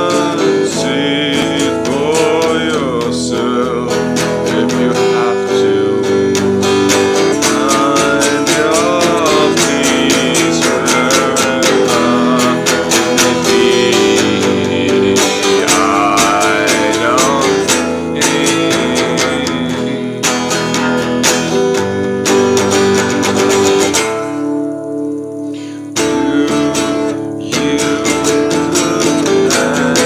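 A man singing over strummed acoustic guitar, his voice gliding and wavering in pitch. The guitar's low notes drop out briefly near the end.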